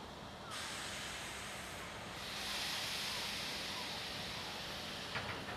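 Steady hiss from an approaching DR1A diesel multiple unit. It starts abruptly about half a second in and grows stronger from about two seconds to five, over a faint low hum, with a few light clicks near the end.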